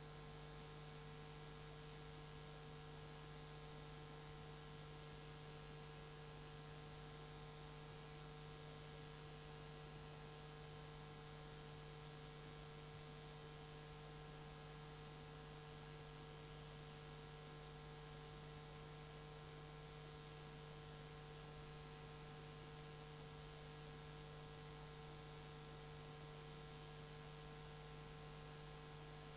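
Faint, steady electrical hum with a thin hiss above it: the recording's noise floor, with no other sound.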